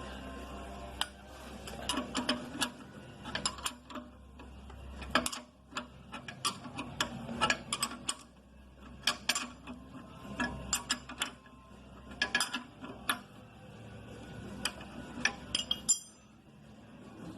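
Hand ratchet wrench clicking in quick runs, burst after burst with short pauses, as a nut is tightened down on a shock mounting stud.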